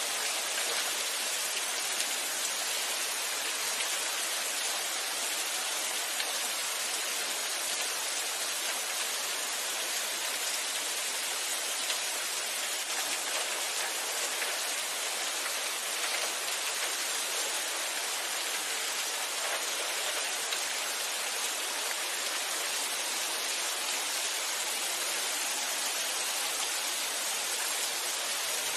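Steady rain falling, an even hiss of many drops hitting a surface with no thunder or pauses.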